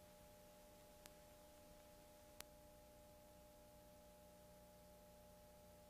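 Near silence: a faint steady hum, with two tiny clicks about a second and two and a half seconds in.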